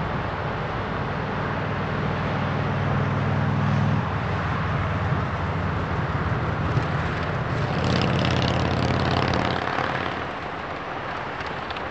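Diesel locomotives of a freight train (EMD GP38-2/GP38-3 units) running with a steady low engine drone that changes abruptly about four seconds in. Road traffic hiss is mixed in, with a louder, hissier passing vehicle near the end.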